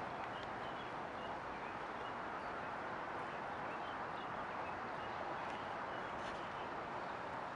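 Steady outdoor background noise, with small birds chirping briefly now and then.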